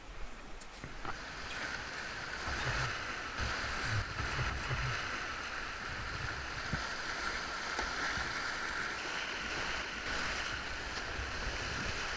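Whitewater rapids rushing steadily around a packraft, with scattered low thumps, mostly in the first half.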